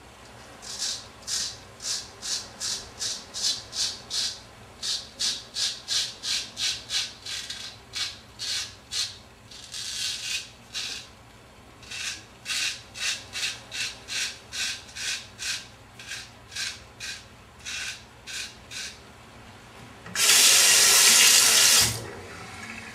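Keen Kutter #44 straight razor scraping through lathered whiskers in short, quick strokes, about three a second, in several runs with brief pauses. Near the end a tap runs for about two seconds.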